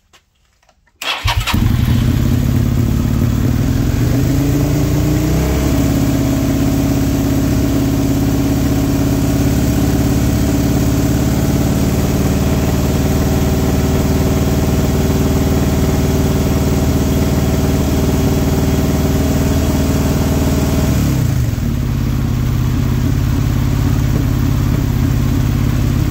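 Suzuki SV 90-degree V-twin motorcycle engine starting about a second in, revving up and held steady at around 5,000 rpm for a stator output (charging system) test, then dropping back to idle near the end.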